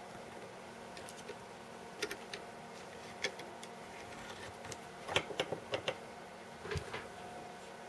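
Scattered clicks and cracks as a small bench vise is cranked tighter on a USB power supply's plastic case to split it open, with a tight cluster of sharper cracks about five to six seconds in. The case is tough and resisting the vise.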